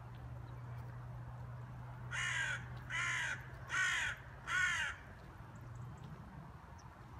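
A crow cawing four times in a row, harsh calls about a second apart.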